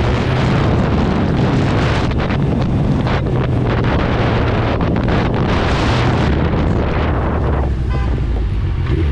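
Sport motorcycle engine running at low, steady revs while riding, under heavy wind rushing over the helmet-mounted microphone. Near the end the wind noise drops away as the bike slows, leaving the engine's low note.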